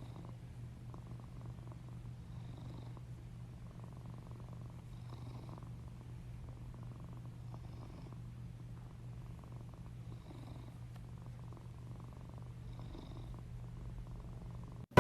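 A domestic cat purring steadily, a low continuous rumble that swells slightly with each breath, roughly every two and a half seconds.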